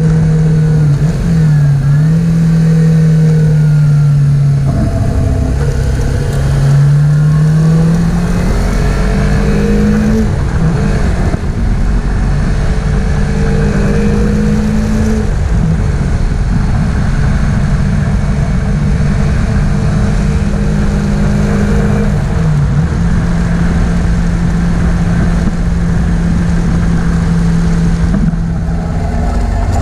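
Kawasaki Versys-X 300's parallel-twin engine running on the move, its pitch dropping and climbing again several times, over steady wind and road rush.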